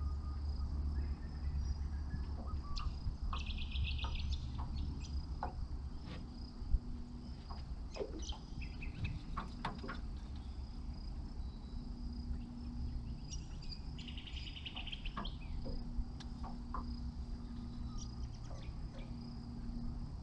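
Insects droning steadily in the riverside bush, with scattered bird chirps and two short rapid trilling calls, about three seconds in and again about fourteen seconds in, over a low rumble.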